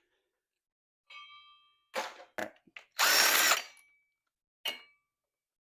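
A power drill spins up in a burst of under a second about three seconds in, its pitch rising and then holding. Before it come a metallic clink that rings briefly and a few short knocks, and a brief whir comes near the end.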